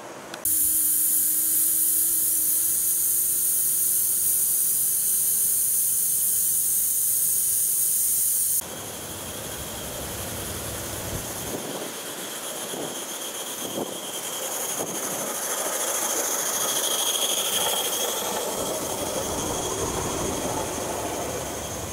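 Gauge 1 live-steam model of Durango & Silverton Mogul 376 hissing loudly with escaping steam for about eight seconds, cutting off suddenly. After that comes the quieter, steady running noise of a model train on the track, swelling toward the end.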